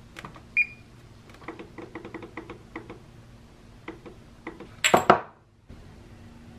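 Frigidaire oven's keypad being pressed: a short beep as Bake is pressed, then a quick run of key ticks as the temperature is stepped up to 375°. About five seconds in there is a louder, brief clatter.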